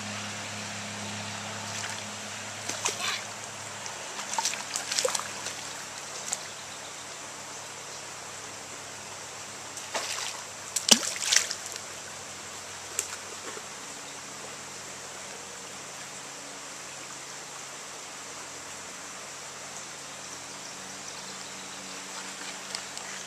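Shallow rocky creek trickling steadily, with a few short splashes as a child wades and dips a hand net in the water, the loudest about eleven seconds in.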